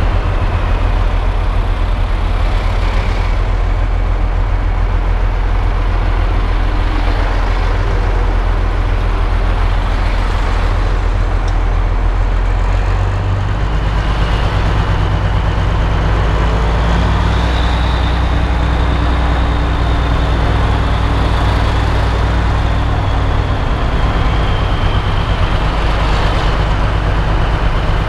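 Tractor engine running steadily under way, heard from inside the cab, with a loud low drone whose engine note shifts about halfway through. A faint high whine rises and falls in the second half.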